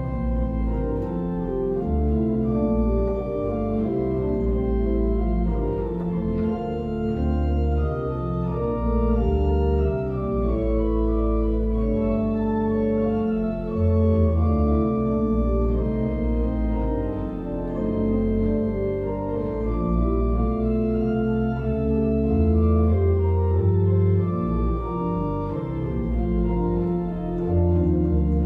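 Church organ playing a slow, sustained passage: held chords that change every second or so over a pedal bass line.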